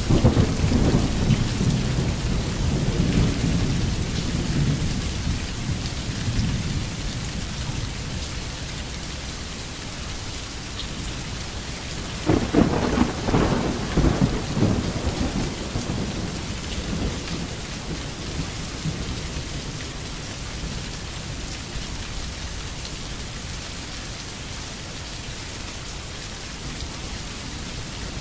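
Steady rain with rolling thunder: a deep rumble right at the start that fades away over several seconds, and another about twelve seconds in.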